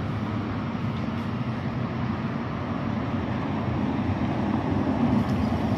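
Road traffic: a steady low engine hum with road noise, growing slightly louder toward the end.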